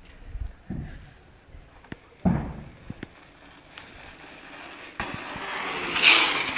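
Wind thumping on the microphone a few times, then a rush of noise that swells from about five seconds in and is loudest near the end as a bike ridden on its back wheel passes close by.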